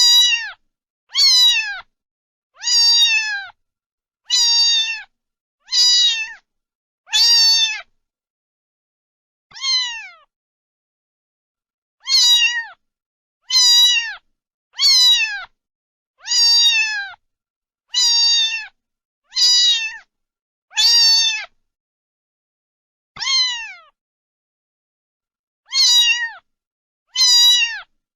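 A domestic cat meowing over and over, a meow every second or so, each one high and falling in pitch, with a few longer pauses between runs.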